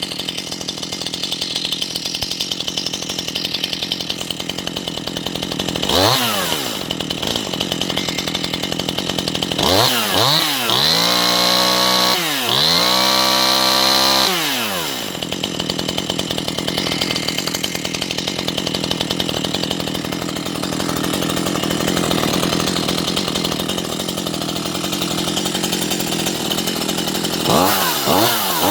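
Stihl MS 181 C-BE two-stroke chainsaw idling just after a cold start. It is revved briefly about six seconds in, then held at high revs twice in a row from about ten to fourteen seconds, and revved again near the end.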